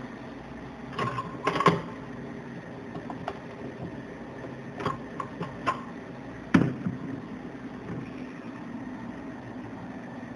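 Metal mixing bowl of a liquid nitrogen ice cream mixer knocking and clanking as it is handled. A cluster of knocks comes about a second in, and the loudest single knock comes about six and a half seconds in. Under them runs a steady machine hum.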